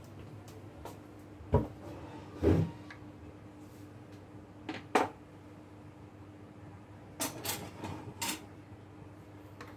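Scattered knocks and clatters of kitchen things being moved and set down on a stone countertop: one about a second and a half in, a longer clatter a second later, a sharp knock halfway through and a quick run of several near the end, over a faint steady hum.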